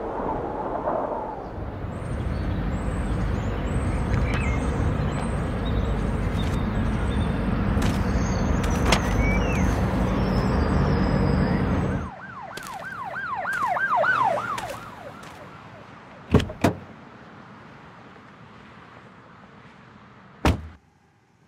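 A car driving over sand, engine and tyre noise with a low rumble, cutting off abruptly about halfway through. A quick run of rising-and-falling chirps follows, then a few sharp knocks.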